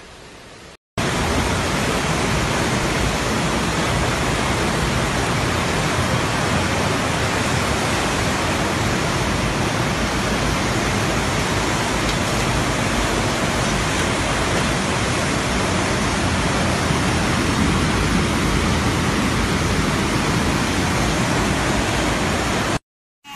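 Muddy floodwater of a river in flood rushing past in a torrent: a loud, steady noise of water. It starts suddenly about a second in and cuts off just before the end.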